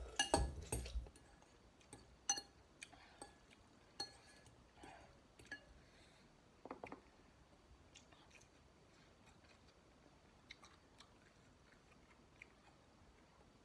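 Close-up eating sounds of instant noodles: a loud slurp in the first second, then chewing with wet mouth clicks and smacks that come every second or so and grow faint toward the end.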